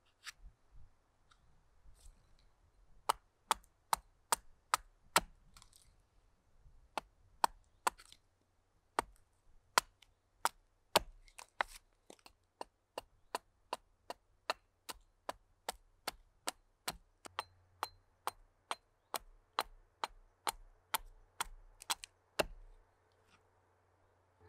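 Small carving axe hewing a wooden spoon blank against a chopping stump: a long run of short, sharp chops, about two a second, starting about three seconds in and stopping shortly before the end.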